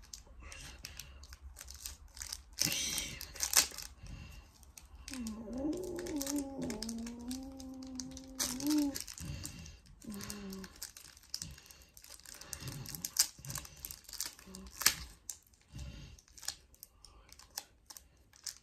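A newsstand packet's wrapper crinkling and tearing in irregular clicks and crackles as fingers pick at it to get it open. A drawn-out vocal hum sounds about five seconds in.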